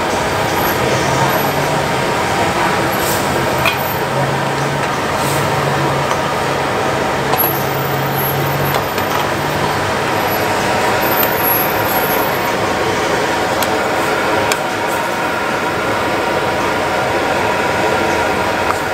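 Steady roar of a high-pressure gas wok burner under a pan of sukiyaki, with a few light clinks of a metal ladle against the pan.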